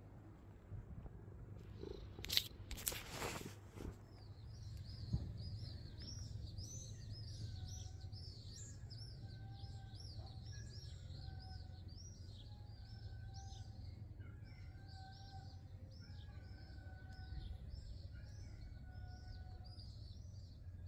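Domestic cat purring steadily while being stroked, with a bird chirping repeatedly in the background from about four seconds in. A couple of loud crackling noises come about two to three seconds in.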